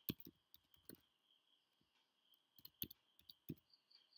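Faint typing on a computer keyboard: a few key clicks in the first second, a pause, then another short run of clicks about two and a half seconds in. A faint steady high tone lies underneath.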